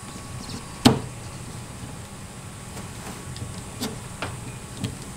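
A sharp click about a second in, then a few fainter clicks and taps near the end, as a windshield wiper blade is worked onto its wiper arm, over a steady low hum.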